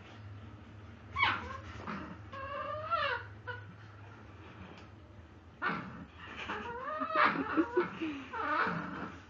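A puppy whining and yipping in drawn-out pitched cries that bend up and down, with a busier run of cries from about six seconds in.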